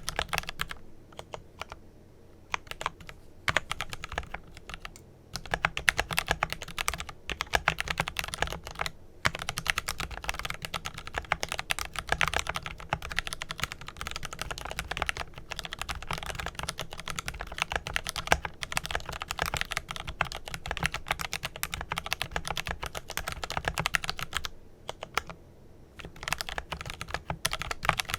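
Fast, continuous typing on a Glorious GMMK Pro mechanical keyboard with lubed Kailh Pro Purple tactile switches, a dense run of keystrokes broken by several brief pauses, the longest near the end.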